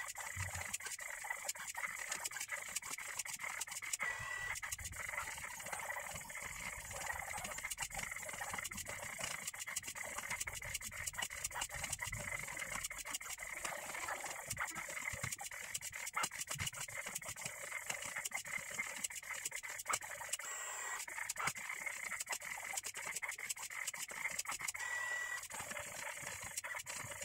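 Small CNC pen plotter running: its stepper motors drive the pen head in quick short moves with dense rapid ticking and brief high whines now and then, while the ballpoint pen scratches across paper.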